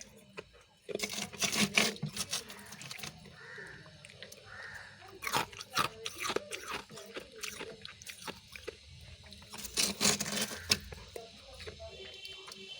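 Crisp crunching and chewing of freezer frost and refrozen ice chunks in the mouth, in three bursts of crackling bites about four seconds apart, with softer chewing between them.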